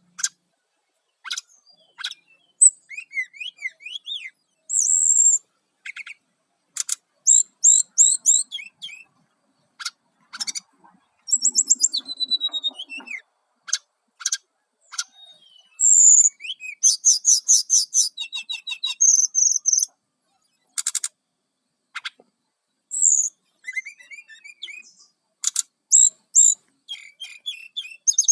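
Brown-chested jungle flycatcher singing: a varied song of high, sharp chirps, gliding whistled notes and fast runs of repeated notes, broken by short pauses.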